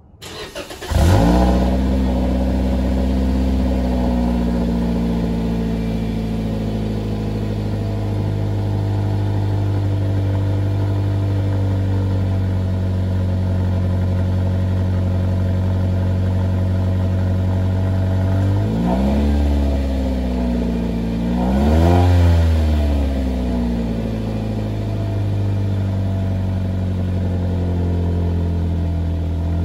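A 2017 Toyota Vitz GR Sport "GR" heard at the tailpipe of its factory muffler: the engine starts about a second in, flares, then settles into a fast idle that eases down a little over the next few seconds. About two-thirds of the way through it is blipped twice briefly, the second rev higher, then returns to a steady idle.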